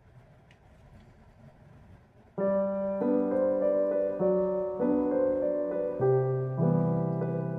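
Background piano music that starts suddenly about two and a half seconds in, with gentle notes changing every half second or so. Before it there is only faint low background noise.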